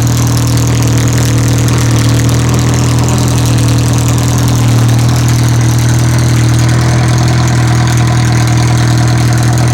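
1973 Triumph Spitfire 1500's four-cylinder engine idling steadily through a straight exhaust.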